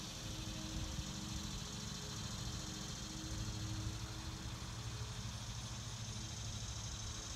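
Cicadas buzzing in a steady high chorus over a lawnmower engine running steadily underneath.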